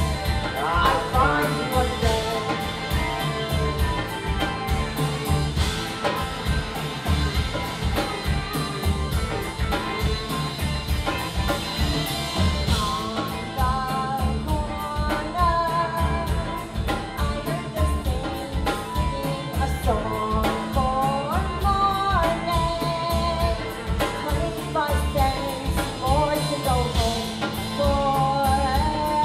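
Live rock band playing: a woman singing lead over electric guitars, bass, keyboard and a drum kit keeping a steady beat.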